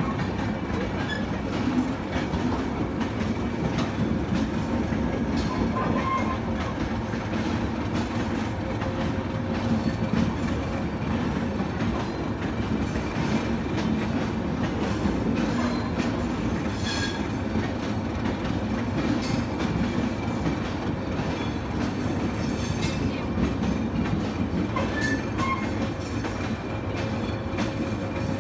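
Passenger train running on the rails: a steady rumble of wheels and coaches, with clickety-clack over the rail joints and brief high wheel squeaks now and then.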